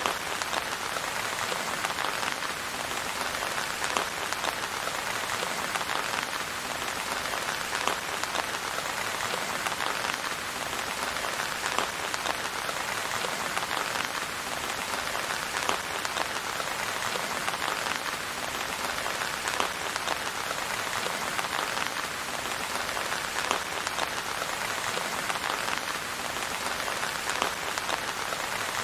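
Steady rain, with the hits of separate drops heard as frequent small ticks over an even hiss.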